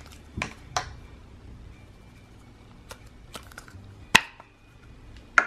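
Handling sounds of a plastic Play-Doh tub as the dough is taken out of it: scattered light clicks and taps, with a sharper knock about four seconds in and another near the end.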